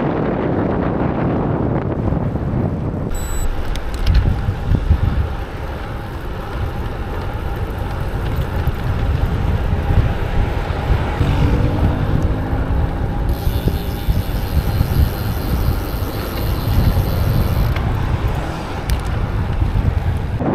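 Wind rumbling on the camera microphone of a road bike being ridden at speed. A hiss rises for a few seconds past the middle.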